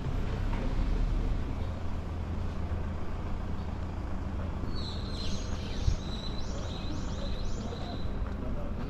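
A bird chirping a quick run of high, down-sweeping notes for about three seconds, starting around the middle, over a steady low rumble of outdoor background noise.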